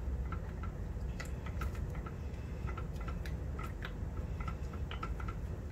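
Silicone spatula stirring cubes of cream cheese into a thick flour-and-milk cream in a pot, making irregular light clicks and taps against the pot, over a low steady rumble.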